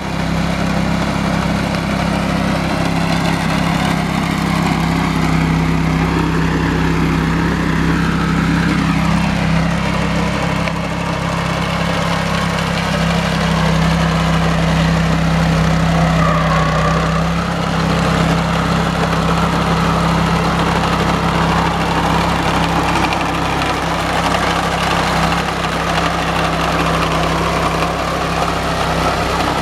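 Small petrol engine of a walk-behind chain trencher running steadily under load while its digging chain cuts a narrow trench through soil; a constant low engine hum throughout.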